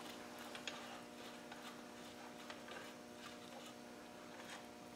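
Faint, scattered light metallic clicks of main bearing cap bolts being spun down by hand on a 300Tdi engine block, over a steady low hum.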